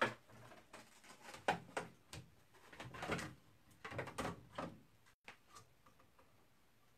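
Sizzix Big Shot die-cutting machine being hand-cranked, the cutting plates with the die forced through its rollers in a series of uneven scraping strokes for about five seconds, ending in a few light clicks.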